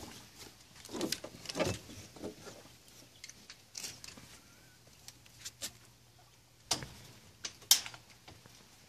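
A goat moving about close by on a wooden deck: scattered taps and knocks, a few louder ones, the sharpest near the end.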